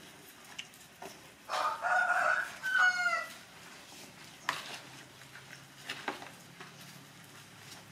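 A rooster crows once, starting about a second and a half in: a call of nearly two seconds that ends on a falling note. Afterwards come a few light knocks and scrapes of a spoon stirring chopped meat and greens in a plastic bowl.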